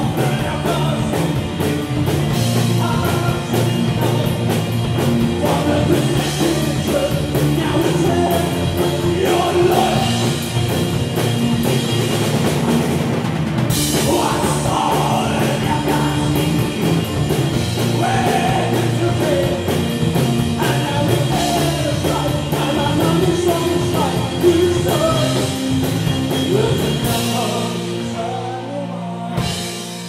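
Live rock band playing: a singer over electric guitars, bass guitar and a drum kit. Near the end the drums drop out and the guitars are left ringing as the song winds down.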